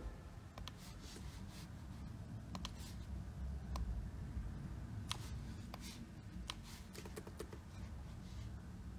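Scattered computer mouse clicks, single and in small quick runs, over a low room hum.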